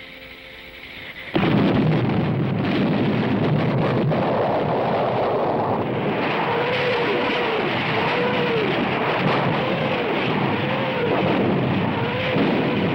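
Continuous heavy rumble of an artillery barrage, starting suddenly about a second in. From about halfway a faint whine rises and falls over it about once a second.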